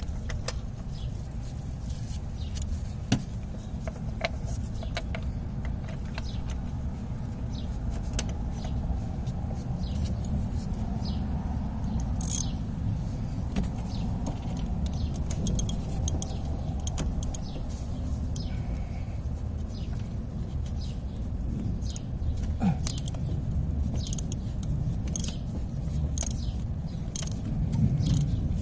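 Metallic clicks and clinks of a socket wrench and extension working on a spark plug, coming in quick clusters, mostly in the second half, over a steady low rumble.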